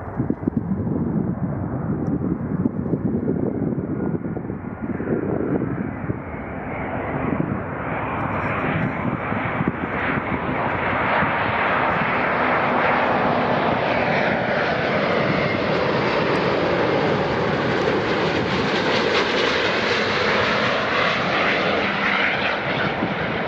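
Jet airliner flying close past, its engine noise building louder and brighter over the first ten seconds or so, then holding loud with a slow sweeping, hollow shift in tone as it passes.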